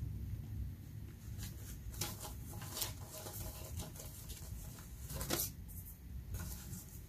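Paper banknotes and plastic cash envelopes being handled: several short rustles and crinkles, the loudest about five seconds in, over a low background rumble.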